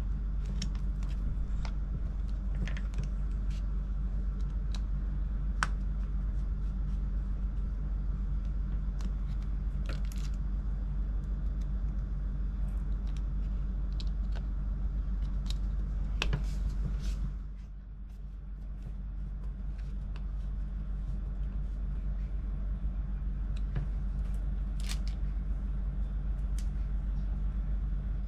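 Scattered small clicks and taps of hand tools on the parts of an opened MacBook Pro, over a steady low hum. The hum drops for a moment about two-thirds of the way through.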